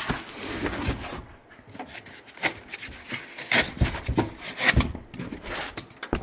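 Cardboard box and packing being handled as a diesel heater is unpacked: irregular rubbing and scraping with a string of light knocks.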